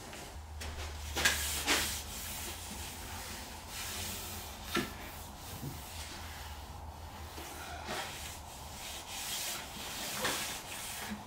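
Hand rubbing and sweeping across the flat wooden top of a cabinet carcass, with a few short knocks and scrapes: two about a second in, one near the middle and one near the end.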